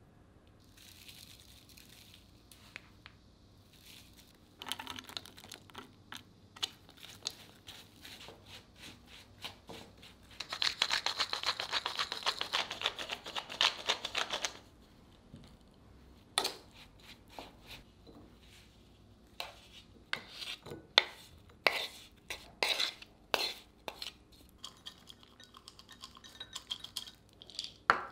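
A wooden spoon stirs corn, bread cubes and mayonnaise in a wooden bowl. About halfway in, a wooden grinder grinds salt and pepper over the bowl for about four seconds in a fast run of clicks. Then come sharp, separate knocks of a spoon against bowls as the mixture is spooned into ceramic dishes.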